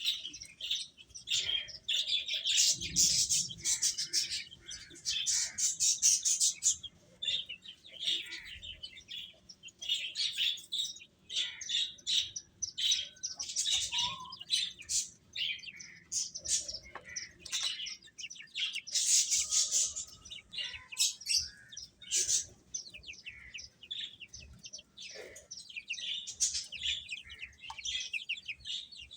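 A group of chicks peeping continuously, many short high chirps overlapping one another.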